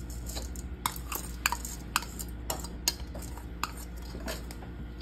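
Scattered light clicks and taps of kitchenware, about eight spread over a few seconds, as chopped green chillies are tipped from a small glass bowl into a bowl of urad dal vada batter.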